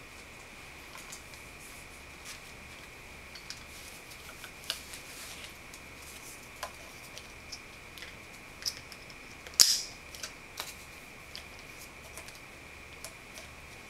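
Light scattered clicks and handling noises of a CPAP mask and its headgear being fitted, with one sharper click about two-thirds of the way through, over a faint steady high-pitched whine.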